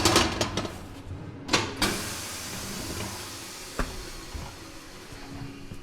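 A few clattering knocks, then a steady high hiss of compressed air lasting about four seconds, with one more sharp knock partway through.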